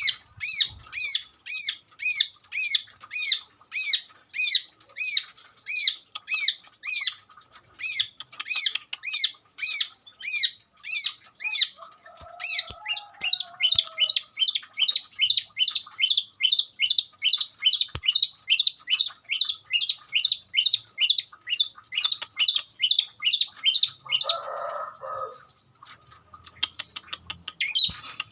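Long-tailed shrike (cendet) singing a long series of sharp, repeated down-curving notes, about two or three a second: a run of imitated calls of another bird. About twelve seconds in it switches to a faster, softer run of similar notes. Near the end this run is broken by a short, lower, rougher sound before the notes start again.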